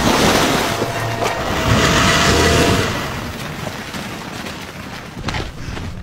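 A heavy splash and churning spray of water as a crocodile lunges from the water at a wildebeest, loudest for the first three seconds and then dying away.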